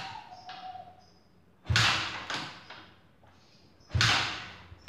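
Kick-starter of a Yamaha automatic scooter kicked slowly twice, about two seconds apart. Each kick spins the engine over briefly with a clatter that fades away, and the engine does not fire. The ignition is off: this is cranking after long storage to get oil to the piston.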